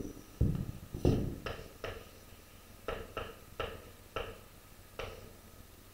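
Chalk tapping and scraping on a blackboard as an equation is written: about nine short, irregular taps, the loudest about a second in.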